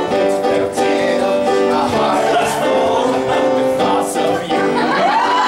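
Boy-band style pop song with singing, held notes changing every half second or so; near the end a pitch slides up and back down.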